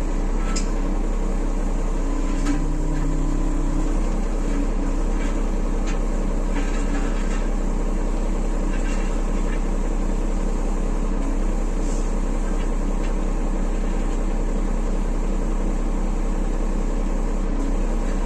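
An engine running steadily at idle, with a few light clicks over it.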